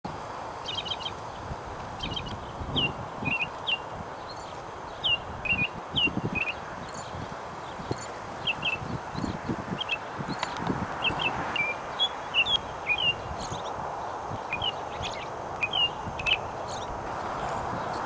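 American robin singing: groups of short, clear whistled notes, some rising and some falling, with brief pauses between phrases.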